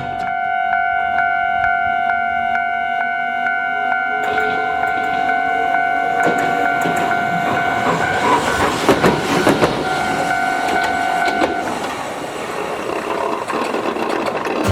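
Japanese level-crossing warning bell ringing its steady electronic two-tone clang, about two strikes a second, while an Iyo Railway city tram crosses, its wheels clattering over the rails and crossing, loudest about two-thirds of the way through. The bell cuts off a few seconds before the end as the tram runs on.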